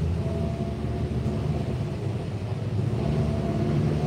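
Car engine and road noise heard from inside the cabin while driving in city traffic: a steady low rumble.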